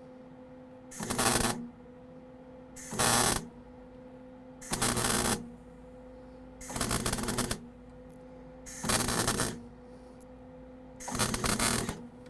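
Wire-feed welder laying tack welds on old, pitted sheet steel: six short crackling arc bursts, each under a second, about two seconds apart, over a steady electrical hum.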